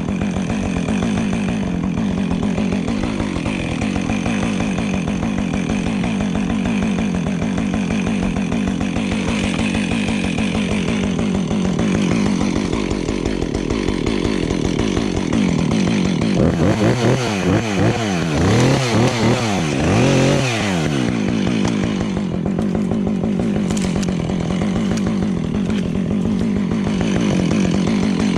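Husqvarna 555 two-stroke chainsaw running at a steady lower speed, then revved up and down several times for about five seconds past the middle, before settling back to its steady speed and picking up again at the end.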